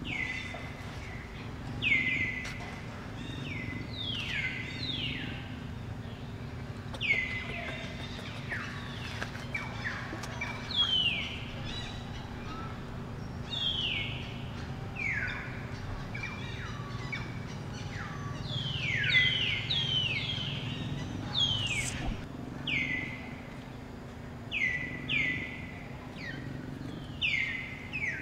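Repeated short, high-pitched animal calls, each dropping sharply in pitch, about one every second or two, over a low steady hum.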